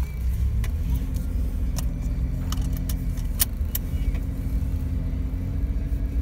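Car engine and road noise heard from inside the cabin at low speed: a steady low rumble with an engine hum that rises and falls slightly. A few light clicks and rattles come from inside the car a little past halfway.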